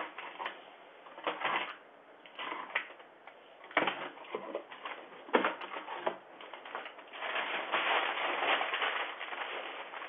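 Paper and plastic packaging of a parcel rustling and crinkling as it is torn open and rummaged through, with irregular sharp snaps a few times and a denser stretch of rustling near the end, heard through a doorbell camera's thin, narrow microphone.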